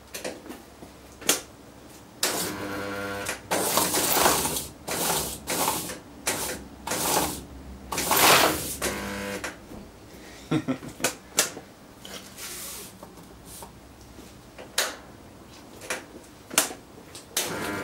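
A loose rotor spins without bearings inside a powered compressor-motor stator, rattling and knocking against the stator and the plastic sheet under it. Through the first half it goes in loud bursts of rattling and scraping, with a buzzing hum in places. Later it settles to scattered knocks.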